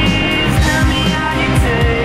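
Rock song with guitars, a vocal and a steady drum beat.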